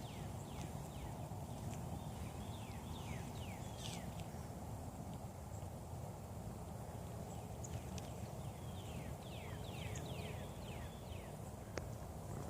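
Animal calls: runs of short, quickly falling notes, several a second, coming in bursts near the start, around three to four seconds in and again from about eight to eleven seconds, over a steady low rumble.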